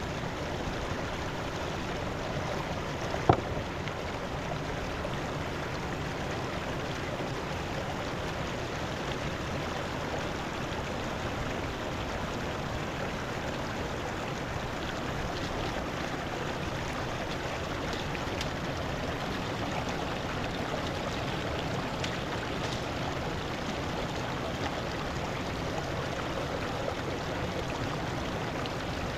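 Mountain river water rushing steadily. One sharp click or knock sounds about three seconds in.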